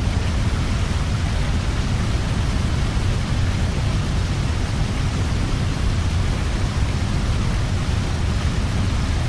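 Heavy rain falling steadily: a loud, even rushing noise with a strong low rumble.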